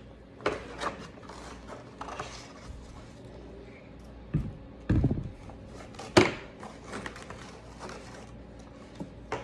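Handling noises as a toy RC car's plastic body is worked over with wax: scattered taps and knocks with a few duller thumps, the loudest a sharp knock about six seconds in.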